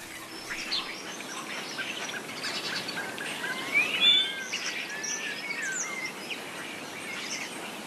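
Small birds chirping and calling over a steady outdoor hiss, a mix of short chirps and sliding whistled notes, loudest about four seconds in.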